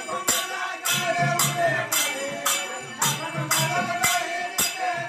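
Sankirtan devotional music: metal hand cymbals clashing on a steady beat about twice a second, with drum strokes underneath and a held, wavering melody line above.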